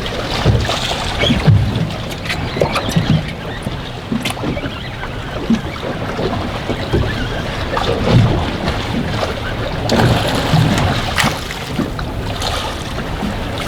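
Strong wind buffeting the microphone on a small boat out on the water, a steady low rumble with scattered short knocks and clatter.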